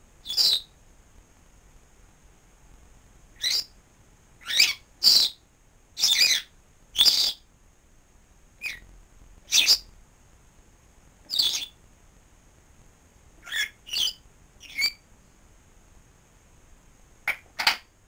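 African grey parrot giving about fourteen short, sharp whistling squawks at irregular intervals, some in quick pairs.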